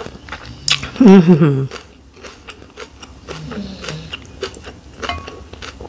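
Close chewing and mouth clicks from someone eating a rice-paper shrimp summer roll. A loud, wavering hummed "mmm" comes about a second in, and shorter low hums come around three and a half seconds.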